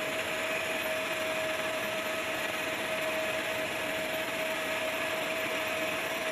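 Steady whine of an aircraft turbine over an even rushing hiss, one held tone throughout, cutting off abruptly at the end.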